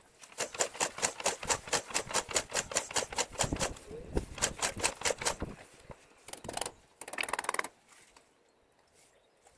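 Yamaha XS650 parallel-twin engine being turned over with its spark plugs out: rapid, even beats, several a second, in two runs with a short break between, then two short bursts. This is the rebuilt engine being spun to push oil up into the top end before its first start.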